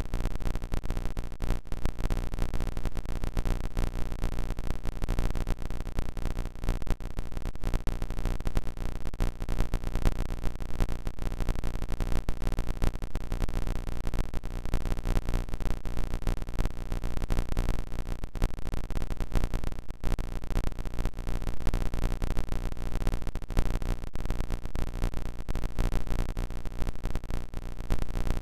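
Melco 16-needle commercial embroidery machine stitching at speed: a fast, steady, even run of needle strokes.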